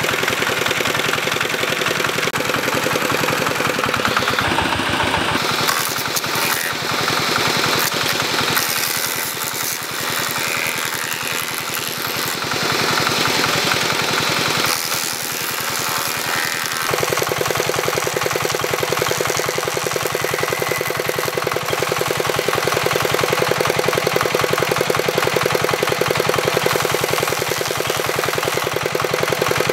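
Stationary single-cylinder diesel engine running steadily with a rapid, even beat as it belt-drives a table saw; about halfway through the sound thickens as the saw blade cuts through a log.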